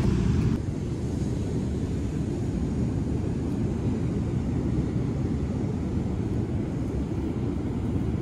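Wind buffeting the phone's microphone: a steady, low rumble.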